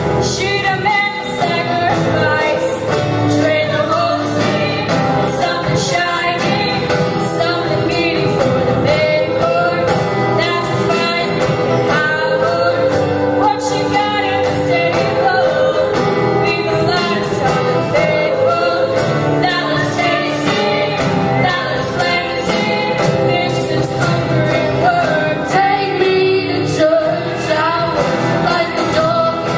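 A mixed-voice show choir singing with a female soloist on a handheld microphone out front, backed by a live band whose drums keep a steady beat.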